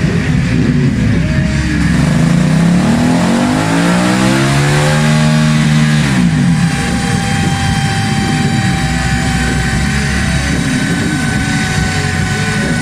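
Aprilia Caponord 1200's V-twin engine on a dynamometer with its stock exhaust. The engine note climbs steadily for a few seconds in a full-throttle pull, then drops away when the throttle closes about six seconds in. A steady whine lingers as it settles back.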